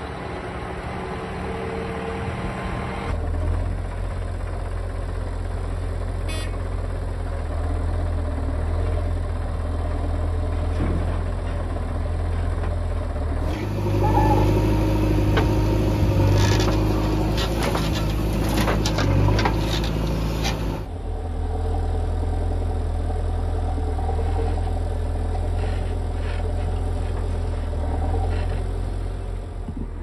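Diesel engine of a JCB 3DX backhoe loader running steadily under load as the backhoe digs and loads soil. Between about 14 and 21 seconds there are many short clatters and knocks of the bucket and falling soil.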